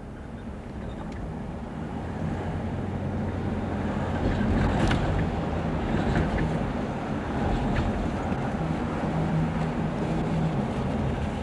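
Engine hum and road noise heard from inside a moving car, building over the first few seconds as the car picks up a little speed, then holding steady.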